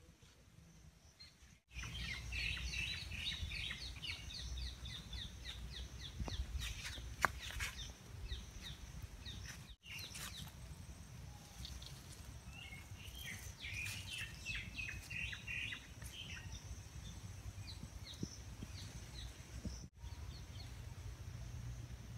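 Small birds chirping in quick runs of short notes over a steady low rumble, starting after a quiet opening second or two. The sound drops out for an instant twice, where clips are joined.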